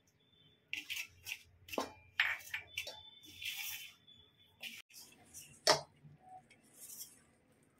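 Hands mixing and kneading maida and water into dough in a stainless steel bowl: irregular scraping and rubbing against the steel, with sharp clinks of the bowl.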